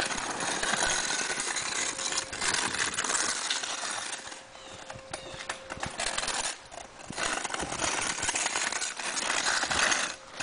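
Polymeric sand being swept over interlocking paving stones: a continuous scratchy hiss of sand grains scraping across the stone, easing off briefly about four and a half and six and a half seconds in.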